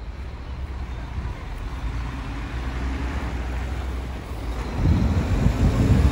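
Street traffic: a motor vehicle engine running with a slowly rising pitch over a steady low rumble, growing louder about five seconds in.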